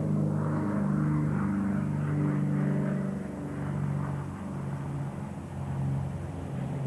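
Twin-engine propeller aircraft flying low, its engines droning with a pitch that wavers up and down, growing a little fainter in the second half.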